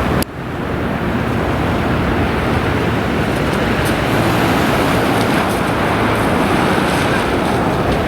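A landing jet airliner making a steady rushing noise that builds slightly through the middle. The sound drops out briefly about a quarter second in, then resumes.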